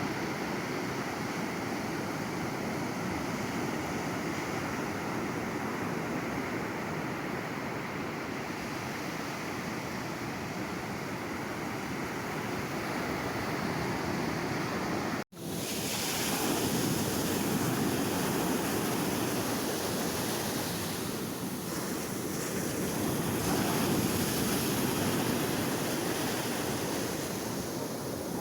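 Sea waves washing steadily onto the shore, with some wind on the microphone. About halfway there is a momentary cut to silence, after which the surf comes back a little louder.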